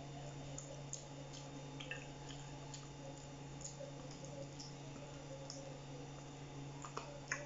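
Faint wet clicks and smacks of a person eating fried chicken with his hands, biting and chewing meat off the bone, with a sharper click or two near the end. A steady low hum runs underneath.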